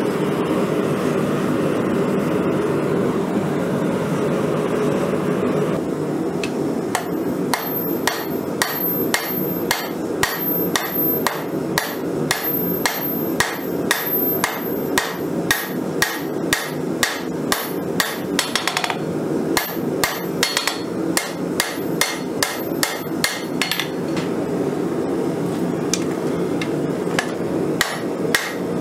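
A steady rushing noise of the forge for the first several seconds, then a hand hammer striking a red-hot Nicholson file (1095 steel) on an anvil, about two ringing blows a second, drawing out the blade. The blows break off briefly about two-thirds of the way in and ease off near the end before picking up again.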